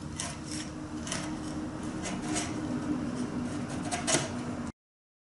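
Wood chisel paring out a drilled slot in a wooden mast: a string of short, sharp scraping cuts into the wood, with a sharper knock a little after four seconds in, over a steady low hum. The sound cuts off near the end.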